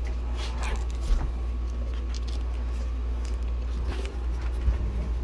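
Steady low hum, with soft rustling and a few small clicks as a hand strokes and handles young puppies' fur while they nurse.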